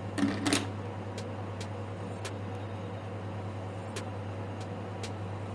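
A few light clicks and taps, with two louder ones right at the start, from small tools and a phone being handled while the last screws of an LCD replacement go in, over a steady low hum.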